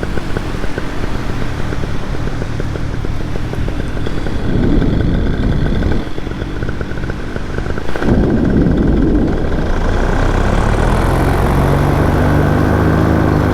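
Paramotor engine running in flight, with wind buffeting the microphone in two strong gusts around the middle; after about ten seconds the engine settles into a steady, even note.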